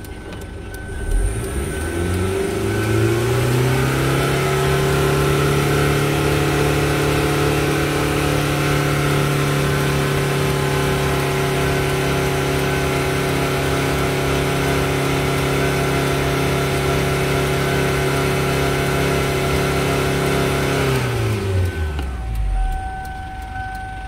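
Kia Sportage 2.0-litre turbo diesel engine revved in Park, heard from inside the cabin. It climbs from idle over about three seconds, is held steady at around 4,000 rpm, and drops back to idle near the end.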